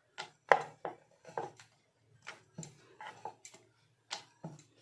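Wooden rolling pin rolling out dough on a round wooden board: a series of short wooden knocks and clacks, about two a second, as the pin and board bump with each stroke.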